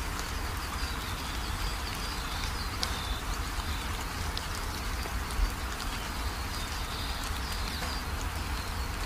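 Steady rain-like hiss with a deep rumble beneath it, faint high chirps and a few light ticks over it.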